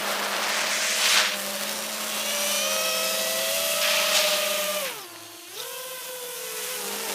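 FPV quadcopter's motors and propellers whining, the pitch wandering with the throttle, with gusts of wind rush twice. About five seconds in the throttle is cut: the whine drops sharply and goes quieter, then picks up again.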